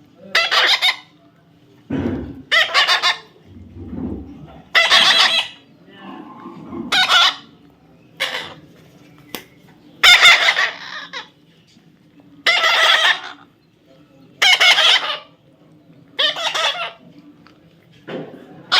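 Baby parrot giving loud repeated calls, each under a second long, about every two seconds.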